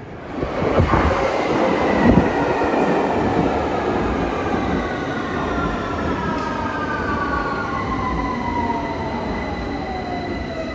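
A London Underground Victoria line 2009 Stock train pulls into the platform and brakes. Its traction motors whine down in pitch over the rumble of the wheels on the rails, with a couple of knocks in the first two seconds.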